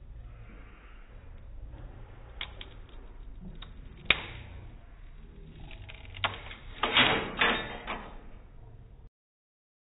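Small wooden-stick truss cracking and snapping as it fails under load, heard slowed to quarter speed so each crack is deep and drawn out: one sharp crack about four seconds in, then a cluster of louder cracks a few seconds later. The sound cuts off suddenly near the end.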